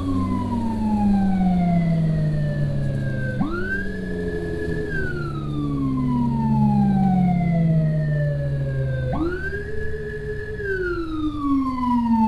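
Emergency siren on a slow wail cycle: each cycle sweeps up quickly, holds its high tone for about a second and a half, then glides slowly down over several seconds, starting over twice, above a steady low motor hum.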